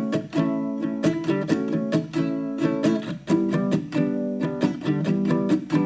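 Background music: strummed acoustic guitar chords at a steady rhythm.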